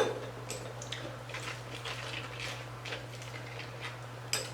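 Spoon scooping ground taco meat into stand-up hard taco shells: a run of small clicks, scrapes and soft squishes, with a sharper knock at the start and another near the end.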